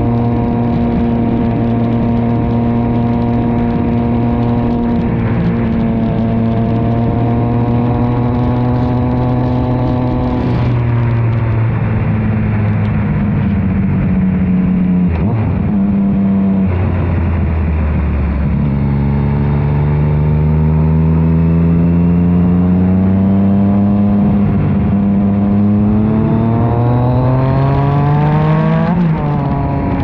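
Yamaha XSR900's three-cylinder engine through an Arrow aftermarket exhaust, heard from beside the silencer while riding. It holds steady revs, eases off about a third of the way in, then climbs in pitch through a long acceleration before dropping quickly in revs near the end.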